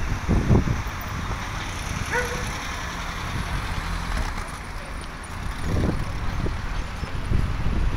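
Busy street traffic: a steady rumble of passing vehicles, swelling louder a few times, with a short pitched sound about two seconds in.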